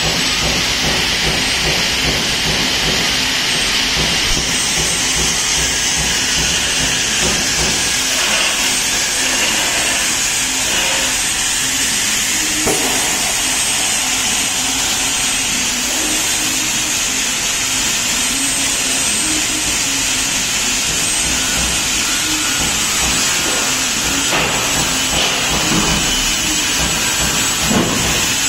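Truck brake roller tester running, its electric gear motors driving the grit-coated rollers and roller chains. It makes a steady, loud hiss with a thin high whine over it, and a few knocks near the end.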